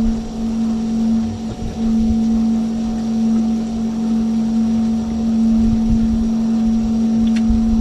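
A small engine running steadily with an even, unbroken hum that dips briefly about a second and a half in, over irregular low rumbles.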